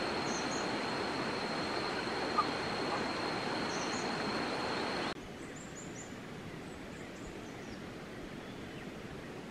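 Outdoor nature ambience: a steady rushing hiss with a continuous high, even whine and a few faint high chirps. About five seconds in the sound cuts abruptly to a quieter hiss; the whine is gone and faint high chirps go on.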